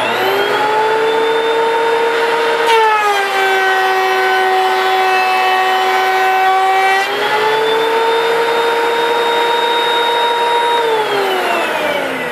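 DeWalt 734 benchtop thickness planer running at full speed with a loud whine. About three seconds in, the pitch drops as the cutterhead bites into a board taking a 1/16-inch pass, and it stays lower for about four seconds. The pitch then climbs back once the board clears. Near the end the planer is switched off and winds down, falling in pitch.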